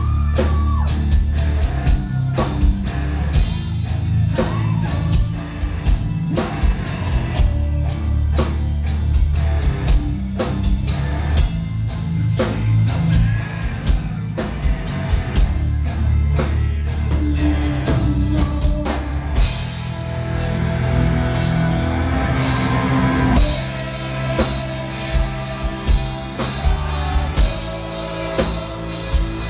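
Gothic metal band playing live, with drum kit, guitars and a singing voice, heard loud from within the crowd. About twenty seconds in, the sound grows fuller and brighter as cymbals wash over it.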